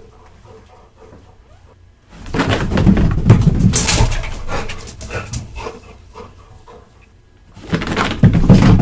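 A dog running on a hard floor: a quiet start, then a loud rush of rapid paw footfalls and scrabbling about two seconds in that fades away, and another loud run starting near the end.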